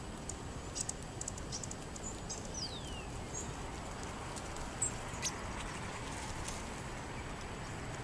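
Small ground-feeding birds, sparrows and quail, at a seed pile on pavement: scattered short high chips and ticks, with one thin falling whistle about two and a half seconds in, over a steady background hiss.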